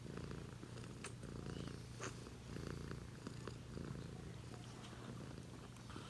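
Domestic cat purring steadily, a low continuous purr, with two small clicks about one and two seconds in.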